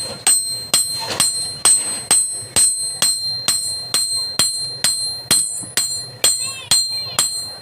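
A blacksmith's hammer striking hot metal on an anvil in a steady rhythm, about two blows a second. Each blow leaves a high, bell-like ring.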